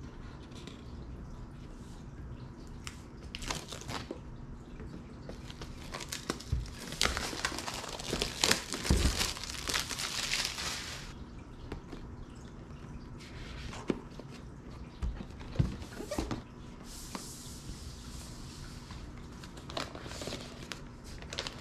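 Plastic shrink wrap crinkling as it is pulled off a cardboard drone box and handled, loudest for a few seconds in the middle. Scattered knocks and scrapes come from the box being handled and its lid opened.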